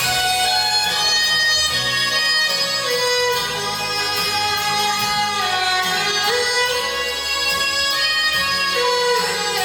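Instrumental section of a pop song: a held, sliding melody line over steady accompaniment.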